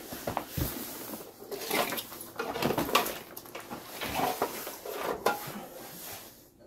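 Irregular plastic clicks, knocks and rustling as a battery charger and its cable are handled and plugged into the tractor's charging socket.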